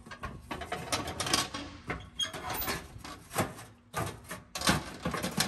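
The old bake element of a Whirlpool electric range is handled and lifted out of the oven cavity: irregular metallic scraping and rattling with a few sharper knocks, the loudest a little after three seconds and again near the end.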